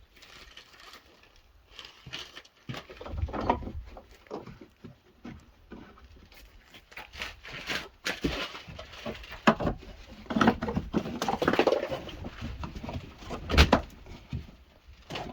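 Irregular clicks, knocks and rustling of plastic shed parts being handled and fitted together during assembly of a Keter shed roof, with a few louder knocks.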